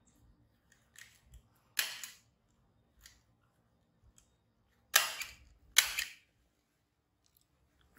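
Sharp snapping clicks of a small black handheld clipper being squeezed shut. There is one about two seconds in, then two louder snaps less than a second apart a few seconds later, with a few faint clicks in between.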